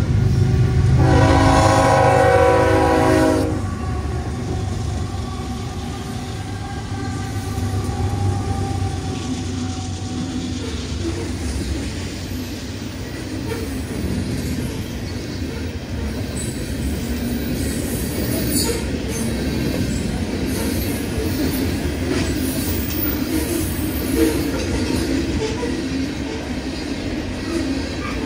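Union Pacific diesel freight locomotive sounding its air horn in one long blast about a second in. As the horn stops, the train runs past and a long string of loaded open-top hopper cars rolls by, wheels clacking over the rail joints with a few faint high squeals.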